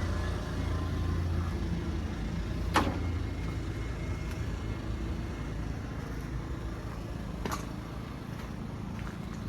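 A motor vehicle engine running steadily with a low, even drone, with two sharp clicks, one about three seconds in and one about seven and a half seconds in.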